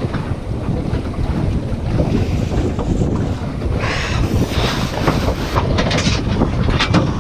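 Strong wind buffeting the microphone over water rushing along a Lightning dinghy's hull under sail, with louder hissing surges of splashing about four seconds in and again near the end.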